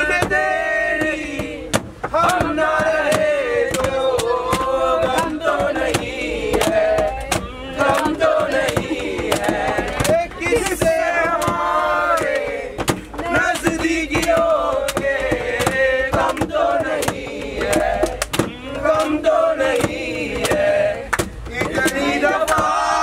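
Several men's voices chanting and singing together in a forceful, rhythmic style over regular percussive hits.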